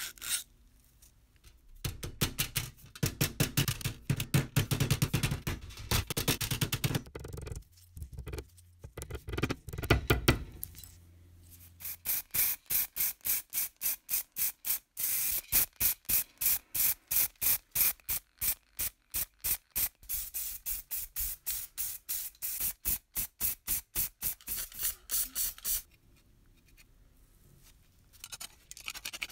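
Hand scraping and rubbing on thin tin-plate sheet metal. An irregular run of strokes is followed by a long, even series of quick strokes, about two or three a second, which stops near the end.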